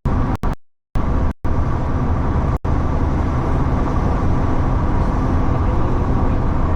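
Steady road and engine noise inside a moving car, broken by a few brief complete dropouts in the first three seconds.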